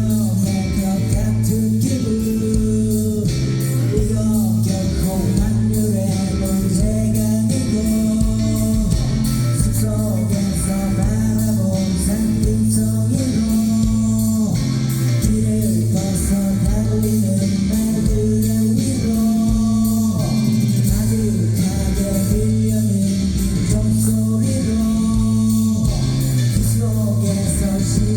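Live band music: a singing voice over guitar and bass guitar, with a bass line that repeats steadily.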